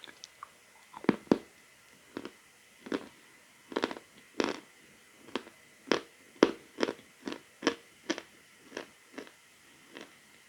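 A person biting and chewing lumps of natural chalk: a run of sharp, dry crunches, roughly two a second, each with a short pause between.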